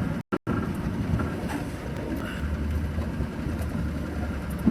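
A car driving along a rough road, with a steady low rumble of engine and road noise. The audio cuts out completely twice, briefly, just after the start.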